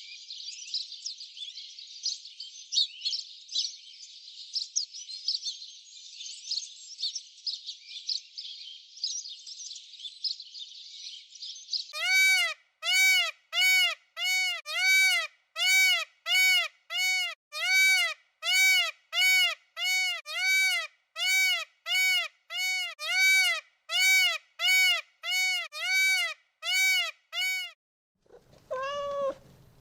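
Animal calls: about twelve seconds of many birds chirping at once, then a loud call repeated evenly about one and a half times a second, each note rising and falling in pitch. Near the end a different call begins.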